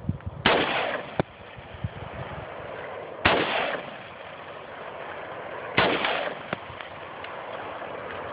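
Three single shots from an AR-15 rifle, spaced about two and a half seconds apart, each followed by a short echo.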